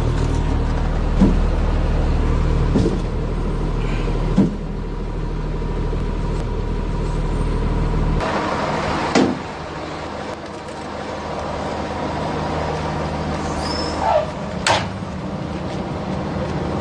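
A large truck's engine runs steadily, with several sharp knocks over it. Its deep rumble drops away about eight seconds in.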